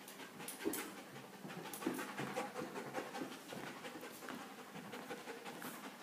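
A dog panting steadily, with light footsteps on a hardwood floor.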